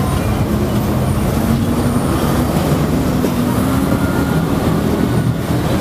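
A steady, loud, low mechanical rumble, like running engines, with faint hum tones that drift slowly in pitch.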